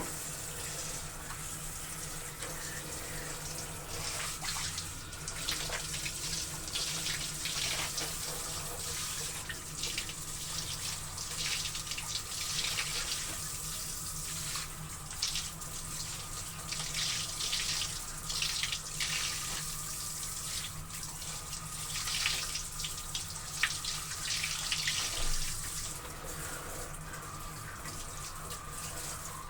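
Water splashing and sloshing irregularly as laundry is washed by hand or foot in water, over a steady low hum.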